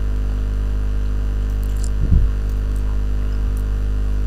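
Steady electrical mains hum with a buzz of overtones in the recording, with one brief low sound about two seconds in.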